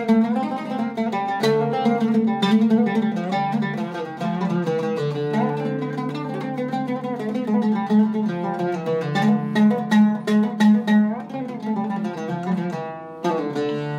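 Iraqi-style Zeryab oud with a cedar soundboard and Thomastik strings, played solo in quick runs of plucked notes with fast repeated strokes on single notes. Near the end the playing pauses briefly and the oud rings on one held low note.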